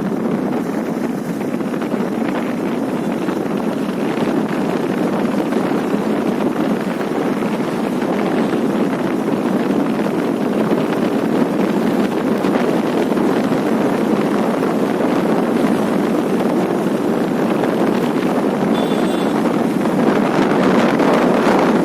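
Steady rushing wind noise on the microphone, growing a little louder near the end.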